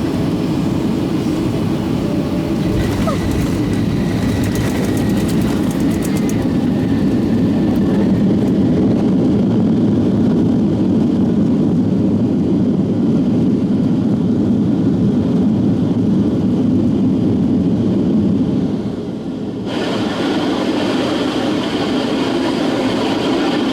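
Steady roar of jet engines and rushing air inside the main cabin of a Boeing 757-300 airliner. The roar swells about eight seconds in, eases briefly near the end, then comes back with more hiss.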